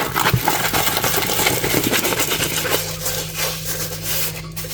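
Plastic packaging of a diamond painting kit rustling and crinkling as it is handled and opened, densest in the first few seconds. A steady low hum runs beneath it.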